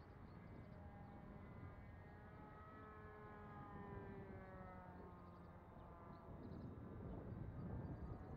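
Distant Kaos 60 RC model airplane flying past, its engine and propeller giving a faint drone that rises and then falls in pitch as it passes. Low wind rumble on the microphone grows near the end.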